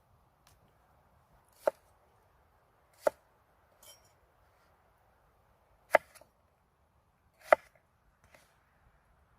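A knife chopping on a cutting board: four separate hard chops spaced about a second and a half apart, with a couple of lighter taps between them.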